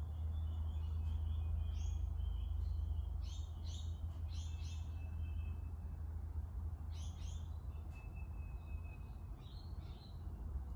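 Birds chirping, several groups of short, quick notes with a few thin held tones between them, over a steady low hum.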